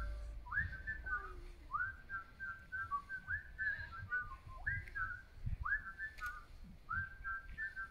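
A tune whistled into the microphones in two-part harmony: short phrases about once a second, each note scooping up into a held pitch, with faint low thumps beneath.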